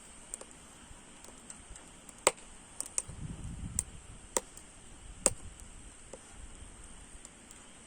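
Firewood burning in a stainless steel shichirin, crackling with a handful of sharp pops spread over a few seconds.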